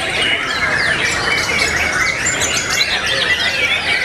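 Many white-rumped shamas (murai batu) singing at once in competition: a dense, unbroken chorus of overlapping whistles, quick rising and falling notes and rapid trills.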